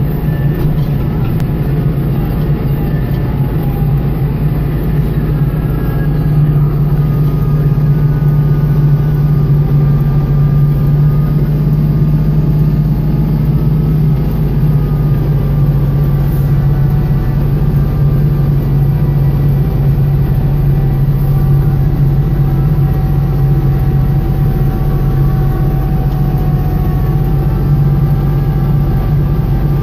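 Kubota L3540 tractor's diesel engine running steadily while driving a snowblower, with a faint wavering whine above the drone.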